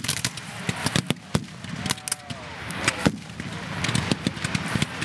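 Black-powder rifle-muskets firing blank charges in a ragged, irregular stream of sharp cracks, some louder and nearer than others.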